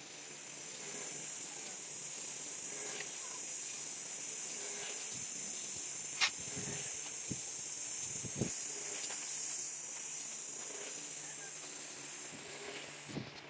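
Strip of tire rubber being fed through a small bench strip machine: a steady high hiss that stops sharply near the end, with a sharp click about six seconds in and a knock a little after eight seconds.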